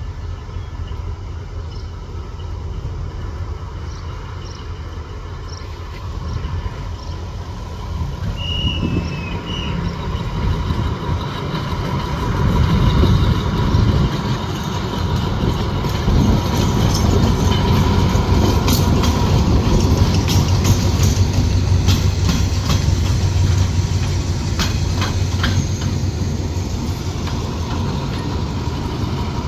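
Diesel-electric locomotives running light past at slow speed, engines giving a steady low drone that grows louder about halfway through. In the later part the wheels click over rail joints.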